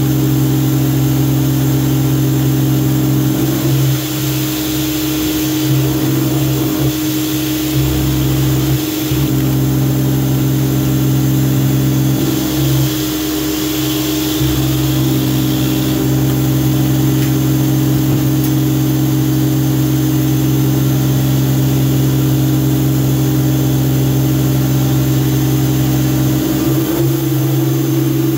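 Greenworks 2000 psi electric pressure washer running steadily, its motor holding a constant hum under the hiss of water spraying from the surface cleaner down onto a plastic growing tray.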